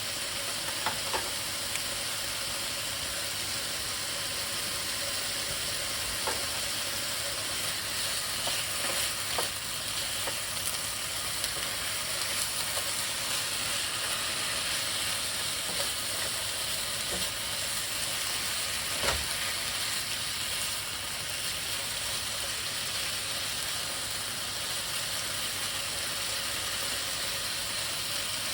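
Stir fry of chicken, onion, wild rice and mixed vegetables sizzling steadily in a hot pan while its sauce reduces, with a few sharp clicks from stirring.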